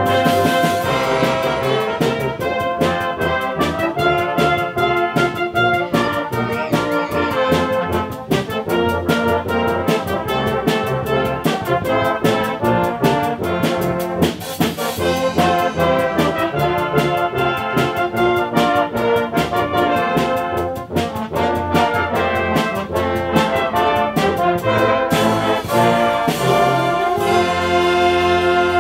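Brass band with tubas and euphoniums playing a lively piece over a steady percussion beat, ending on a long held chord near the end.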